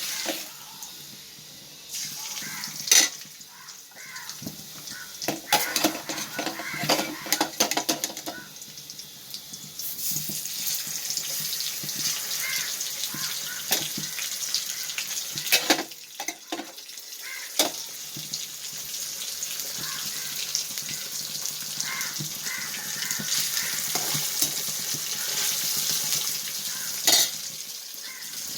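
Indian mackerel pieces frying in coconut oil in a pan: a sizzle that thickens from about ten seconds in and holds steady. Utensils clink and knock against the pan, mostly in the first several seconds.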